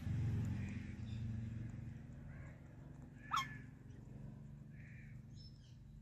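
An Alexandrine parakeet gives a single short, sharp squawk about three seconds in. Under it a low rumble fades over the first two seconds.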